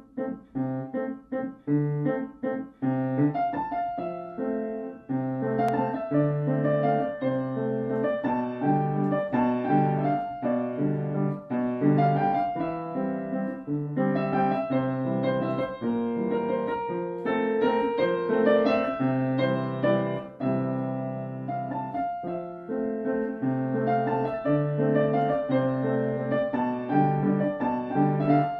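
Background piano music: a melody of struck notes over held low bass notes.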